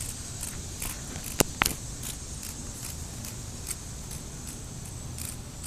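A cicada caught by a praying mantis giving short, high buzzing pulses about three times a second, the distress noise of an insect being eaten alive. Two sharp clicks come about a second and a half in.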